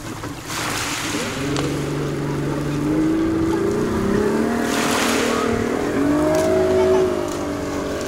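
Outboard motor of a small motorboat revving up as it pulls away towing an inflatable tube ride, its pitch climbing in steps. Small waves wash on the pebble shore twice.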